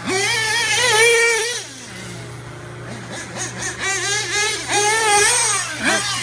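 Dynamite .28 two-stroke nitro engine in an RC truggy running at high revs, its pitch wavering with the throttle. It falls away about two seconds in, then revs up again near the middle and runs on with the same wavering pitch.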